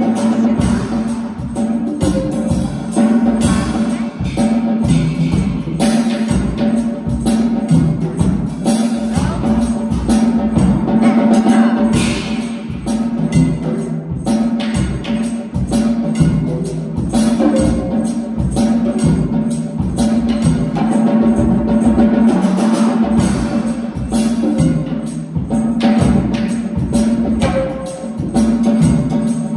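Live piano with percussion playing a steady beat as class accompaniment.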